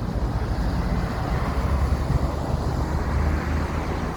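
Steady road-traffic noise outdoors: a low rumble of passing vehicles that swells slightly in the middle.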